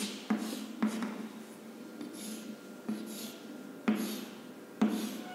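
Chalk on a blackboard as a row of boxes is drawn: sharp taps about once a second with short scratchy strokes between them.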